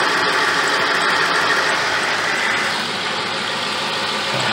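Ford 4.6-litre V8 idling steadily under the open hood, with a hiss that weakens about three seconds in.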